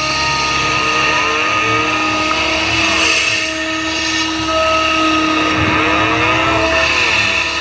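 Tracked excavator's diesel engine running under load, with a steady hydraulic whine that bends up and down in pitch as the machine swings a bucket of dirt over to a dump truck and empties it.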